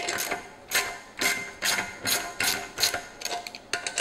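Ratcheting 11 mm wrench clicking in short runs, several clicks a second, as it backs off the nuts of a valve spring compressor on a BMW S52 cylinder head, letting the compressed valve spring out.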